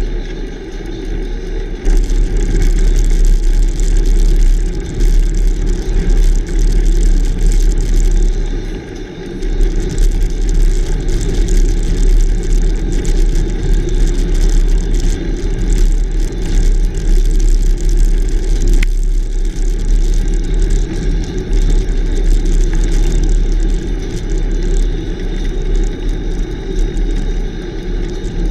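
Steady, loud wind rumble on a bicycle-mounted camera's microphone, mixed with the tyre noise and rattle of a road bike rolling over a rough highway shoulder.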